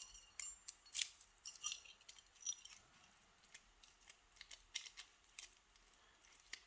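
Key sliding into a pin-tumbler lock and turning its core both ways: scattered small metallic clicks and scrapes.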